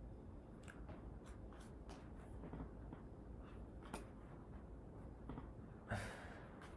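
Faint clicks and rustles of Lenormand cards being picked up from the spread and handled, with a sharper click about four seconds in.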